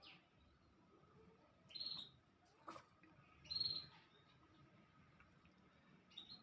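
Three short, high-pitched calls from a small animal, about a second and a half to two seconds apart, with a sharp click between the first two, over near-silent background.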